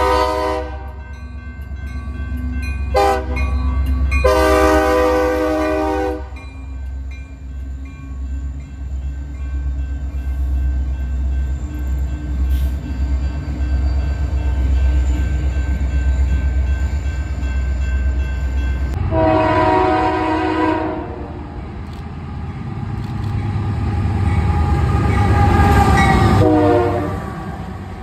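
Union Pacific freight train's diesel locomotives sounding their air horn in several blasts, a longer one ending about six seconds in, as they pass close by with a heavy low rumble of engines and wheels. About two-thirds of the way through another Union Pacific locomotive sounds its horn in a long blast, then again shortly before the end.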